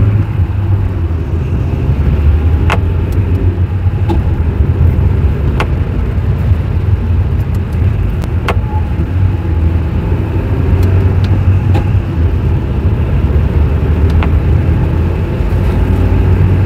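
A Toyota with a five-speed Aisin robotized (MMT) gearbox driving in third gear, heard from inside the cabin: steady engine and road rumble with a few sharp knocks at irregular intervals. Third is the gear said to knock.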